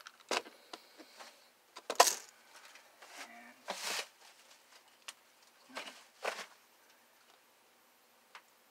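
A string of separate metallic clicks and clinks, the loudest about two seconds in and a faint tick near the end: a metal pellet tin and an air pistol being handled while the pistol is loaded.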